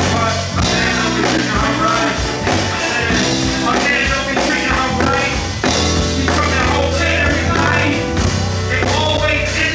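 Live band playing a song with drums, bass and keyboard, a vocalist singing into a microphone over it, heard through a concert PA from the audience.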